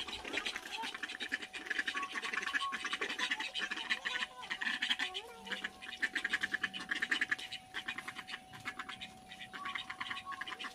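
Repeated buzzing animal calls in bursts of about a second each, made of rapid pulses, over a faint steady hum.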